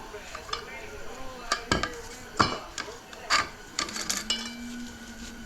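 Metal parts of a 4L60 automatic transmission clinking and knocking together as they are handled, several sharp clinks with a short ring. A faint steady hum comes in about four seconds in.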